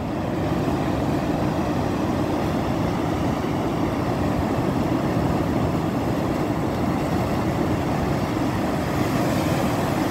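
Steady rushing rumble of surf washing up the beach, mixed with wind buffeting the microphone.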